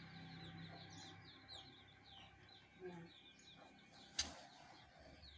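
Faint chirping of small birds in the background, many short, high, falling chirps, with a single sharp click about four seconds in.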